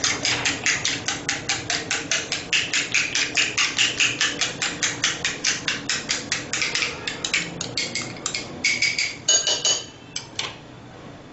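A metal spoon beating yogurt in a small bowl: rapid, even clinks of the spoon against the bowl, about five a second. The beating stops near the end with a few louder clinks.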